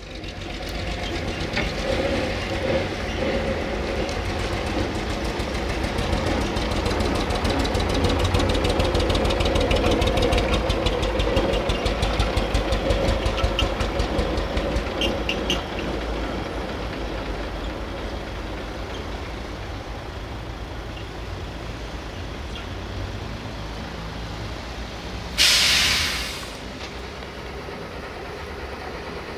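MAN D2156HMN8 six-cylinder diesel of a Raba Roman dump truck running as the truck drives slowly past and away. It is loudest with a rapid ticking clatter in the first half, then eases. About 26 s in, a short, loud blast of compressed-air hiss, typical of the truck's air brakes releasing.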